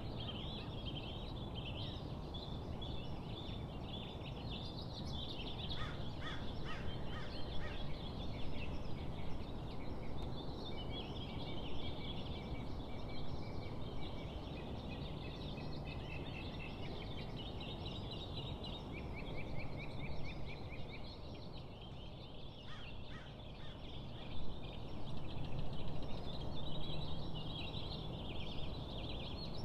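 Several songbirds singing continuously, with high trills and repeated notes over a steady low background noise. There are two short bursts of rapid, lower chattering calls, about six seconds in and again about twenty-two seconds in.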